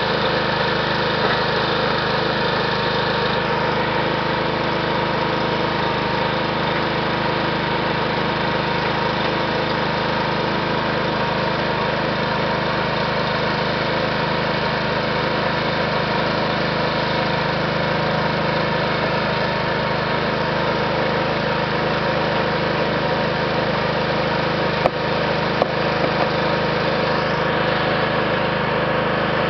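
Small gasoline engine running steadily at a constant speed, driving a conveyor belt. Two brief clicks near the end.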